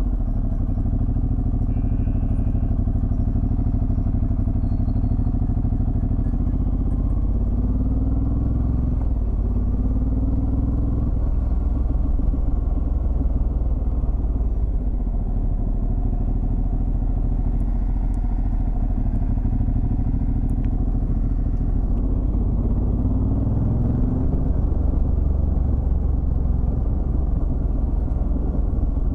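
Ducati Multistrada DVT motorcycle's V-twin engine running on the move, its pitch rising a few times as it accelerates.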